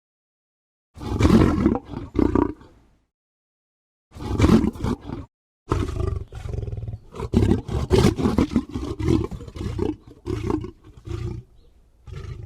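Tiger roaring and growling in three bouts separated by moments of dead silence. The last bout is a long run of rapid pulses that fades near the end.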